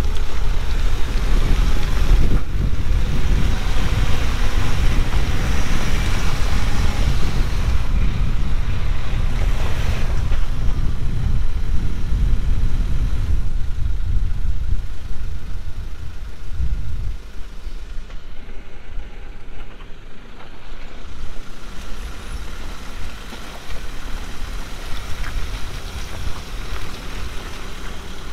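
A four-wheel-drive vehicle driving on a rough track. A heavy low rumble of engine and tyres, with wind buffeting the microphone, eases off about two-thirds of the way in.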